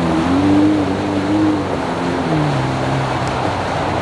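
Jeep Wrangler JK's V6 engine pulling through deep swamp mud, its note rising early on and dropping a little past halfway, over a steady wash of tires churning mud and water.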